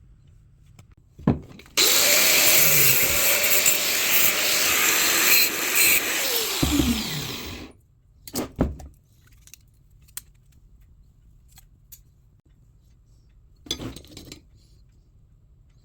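A power tool runs loud and steady for about six seconds with a whine, then spins down to a stop. Separate knocks come before it starts and a couple of times after.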